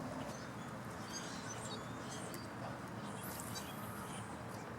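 Small birds chirping faintly in short, scattered calls over a steady outdoor background hiss, with a brief high hiss about three seconds in.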